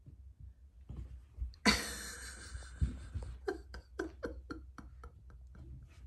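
Cat hissing during a play fight: a sudden hiss about a second and a half in, followed by a quick run of about ten short pulses, roughly five a second, fading out.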